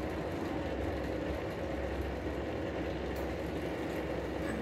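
Steady low mechanical hum with a faint steady tone above it, unchanging throughout.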